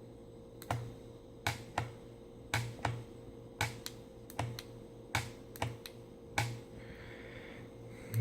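About a dozen sharp, irregular clicks over several seconds, typical of a wireless remote's button being pressed again and again to set off an airsoft claymore. No firing follows: the remote's signal is not strong enough to trigger it.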